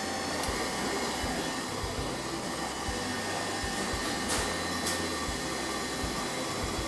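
Electric stand mixer running at a steady speed, beating cheesecake mixture in its steel bowl.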